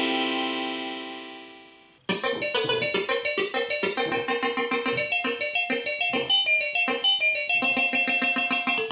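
Rhodes Chroma polyphonic analog synthesizer playing a demo patch: a held chord fades away over about two seconds, then a fast run of short, quickly decaying notes starts abruptly, several notes a second.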